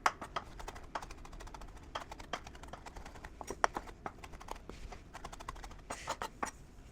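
Kitchen knife rapidly chopping parsley on a chopping board: a fast, steady run of knocks of the blade against the board, with a few louder strikes about halfway through and near the end. The cook judges the knife not sharp enough, making heavy work of the parsley.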